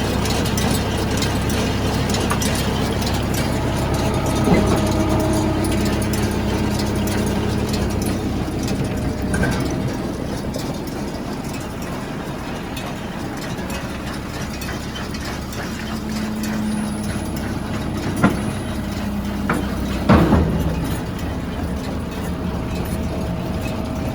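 Engine of a piece of farm equipment idling steadily, with a few short knocks, the loudest about twenty seconds in.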